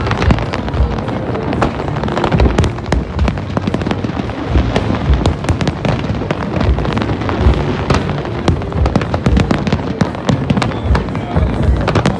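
Aerial fireworks bursting in a dense, unbroken run of bangs and crackles, many shells going off close together.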